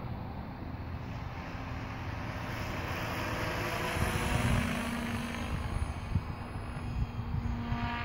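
Compass 7HV electric RC helicopter in flight: its main rotor whooshes and its drivetrain whines, swelling to its loudest about halfway through as the model passes. Wind buffets the microphone throughout.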